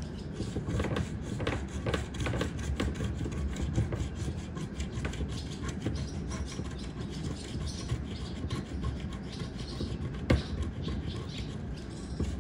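A coin scraping the coating off a scratch-off lottery ticket in quick, continuous back-and-forth strokes, with one sharper tick about ten seconds in.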